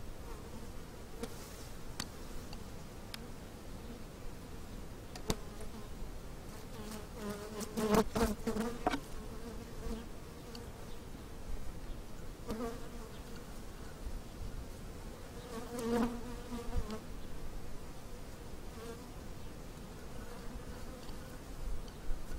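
Honey bees buzzing over an open hive: a steady hum, with louder buzzing as bees fly close about eight seconds in and again about sixteen seconds in.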